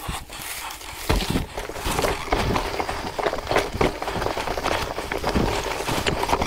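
Electric mountain bike rolling over rough ground: tyres crunching with irregular knocks and rattles from the bike, getting busier about a second in.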